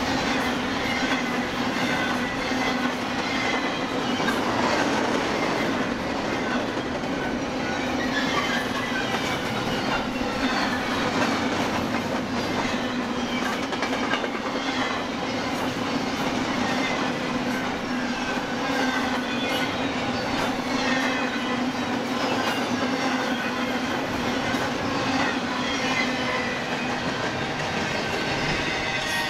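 Freight cars of a BNSF intermodal stack train rolling steadily past: wheels on rail with a clickety-clack over the joints and faint wheel squeal.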